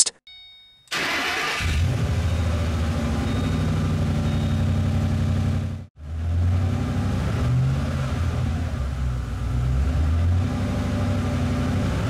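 Ford Mustang engine starting about a second in, then idling steadily, with a brief dropout just before halfway. The misfire on cylinder 4 has just been cured by replacing its faulty spark plug.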